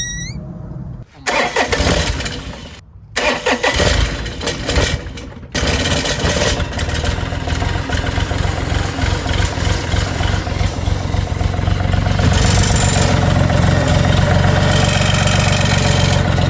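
Kubota three-cylinder diesel of a Bobcat E35 mini excavator cranked on the starter in short tries, catching about five seconds in and then running steadily, louder from about twelve seconds. It is the first start after an oil and fuel filter change, with the fuel system slow to prime.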